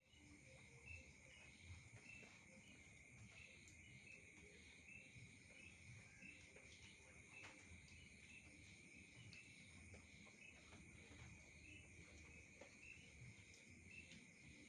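Faint night insect chorus: a steady shrill trill, with short chirps repeating about once a second over it and a fainter high buzz above.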